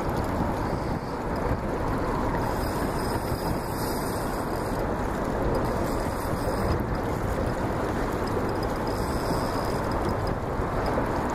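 Steady rushing noise of wind buffeting the microphone over choppy river water beside the boat, with no distinct events.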